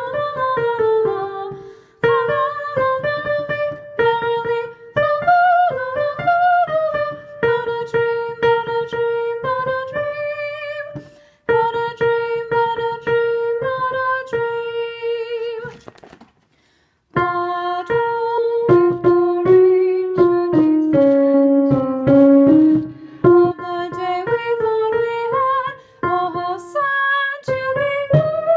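A soprano singing the first soprano line of a madrigal in held, wavering notes, with a piano accompaniment beneath. The phrases break off briefly for breaths, with a short full stop about two thirds of the way through.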